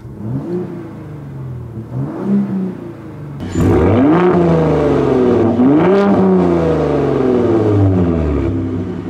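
Ford Raptor's 3.5-liter twin-turbo EcoBoost V6 revved at a standstill through its active-valve exhaust in Sport mode. Two short blips come first, then about three and a half seconds in a long, loud rev that climbs again around six seconds in before easing back down.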